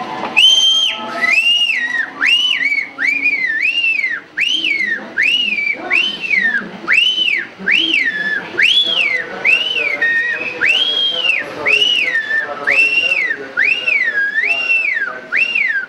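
A man whistling very loudly with two fingers in his mouth: a long string of shrill notes, each one rising and then falling, about three every two seconds.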